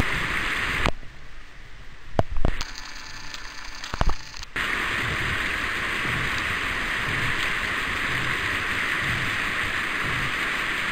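Steady rushing of whitewater river rapids. About a second in, the rushing drops away for a few seconds, with a few sharp knocks, before returning evenly.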